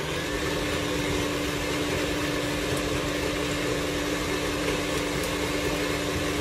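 Electric mixer running steadily at speed with a constant hum, creaming shortening, sugar and molasses together.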